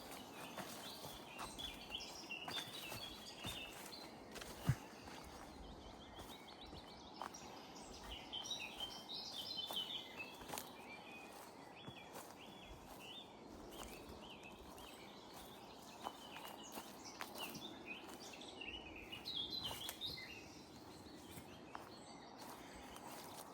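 Footsteps walking through woodland, with small birds chirping in short bursts now and then, and one sharp snap about five seconds in.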